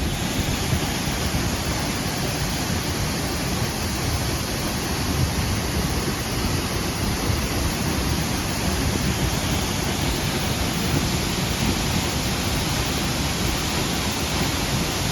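Minoo Falls, a large waterfall, pouring with a steady, even rush of falling water.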